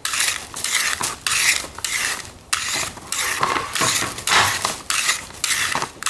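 Repeated scraping, rustling handling sounds, about two a second, as coarse salt is scooped and rubbed between napa cabbage leaves to salt them for kimchi.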